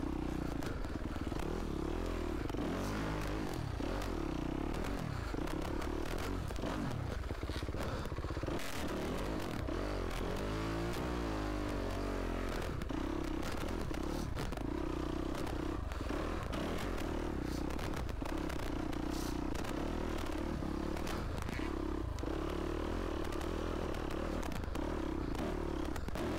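Yamaha YZ250F four-stroke single-cylinder dirt bike engine running under load on a trail ride. Its note holds fairly steady, then wavers up and down with the throttle about halfway through. Scattered knocks and rattles come from the bike over rough ground, picked up by a microphone inside the rider's helmet.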